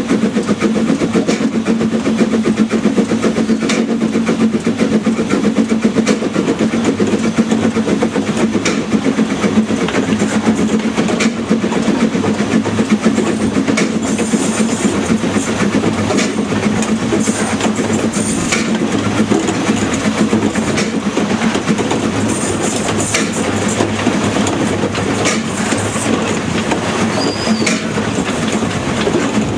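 Narrow-gauge steam locomotive No. 101 working along the line at speed: a steady, even run of exhaust beats mixed with the rumble and clatter of the wheels on the track.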